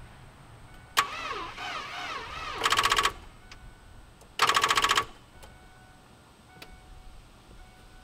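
A failed start attempt on a 1993 Ford Mustang running off a jump box. A sharp click and a wavering pitched sound are followed by two short, harsh, rapidly pulsing buzzes of about half a second each. The engine does not crank over, and the jump clamps are readjusted for a second try.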